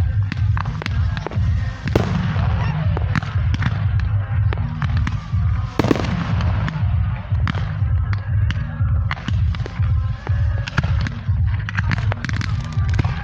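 Fireworks going off in quick succession: a dense run of sharp bangs and crackles, with a steady low rumble underneath.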